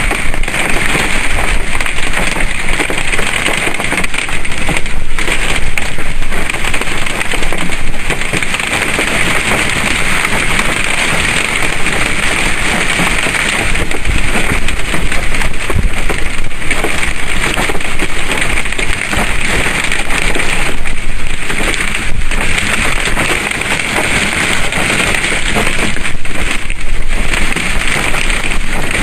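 Strong storm wind, with rain, rushing loudly during a tornado-producing storm. It swells and eases in gusts, with brief lulls now and then.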